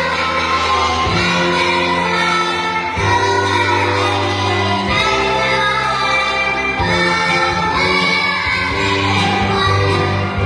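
A song: singing over instrumental accompaniment with sustained bass notes.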